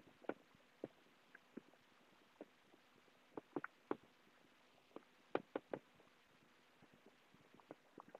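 Faint, irregular clicks of a stylus tip tapping on a tablet's glass screen during handwriting, about a dozen scattered over several seconds against near silence.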